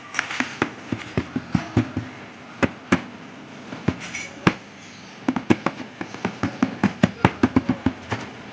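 Hands handling a shoe box during unboxing: a run of irregular sharp taps and clicks, with short lulls about three and a half and five seconds in.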